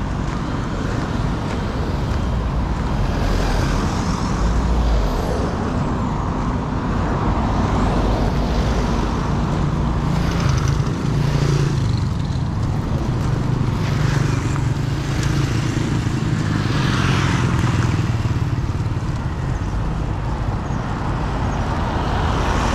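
Street traffic: the steady hum of motor vehicles running past, with a continuous low engine drone and road noise.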